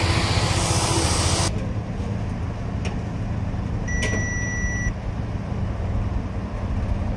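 Audi 3.2-litre VR6 engine (code BDB) idling steadily at about 1,000 rpm: open and bright under the bonnet, then muffled as heard from inside the cabin, about a second and a half in. About four seconds in, a single instrument-cluster chime beeps for about a second.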